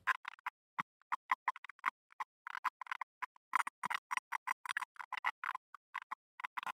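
Computer keyboard keys clicking in quick, irregular runs of several keystrokes a second, fast-forwarded.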